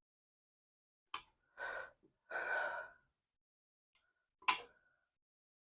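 A man breathing out heavily twice, between two sharp clicks of something being handled.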